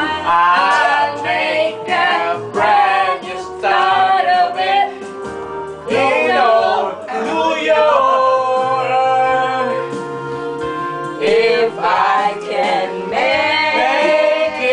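Several men and women singing together over a karaoke backing track, one voice through a magic mic karaoke microphone. The notes are drawn out into long held tones about halfway through.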